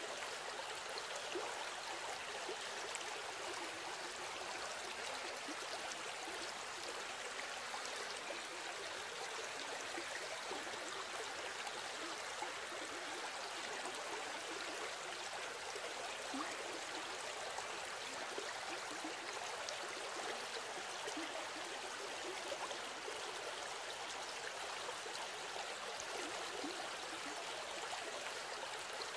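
Steady babbling of running water, like a small stream.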